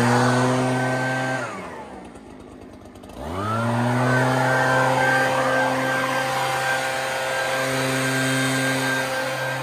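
Leaf blower running steadily, then winding down with a falling pitch about a second and a half in, and spinning back up with a smooth rising pitch about three seconds in before running steadily again.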